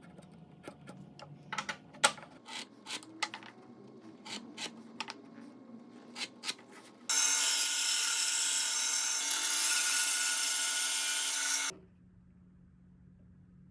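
Wooden pieces and tools handled on a workbench, a string of sharp clicks and knocks. About seven seconds in, a power saw runs and cuts a slot lengthwise into a wooden cylinder for about four and a half seconds, then stops abruptly, leaving only a faint low hum.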